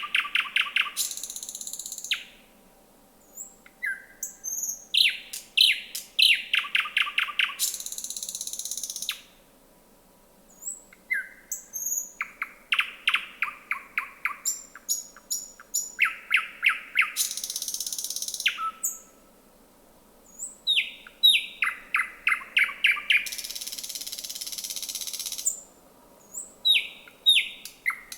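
Thrush nightingale singing: loud phrases of rapid, repeated sharp notes, each ending in a dry, rasping rattle about a second long, with short pauses between phrases.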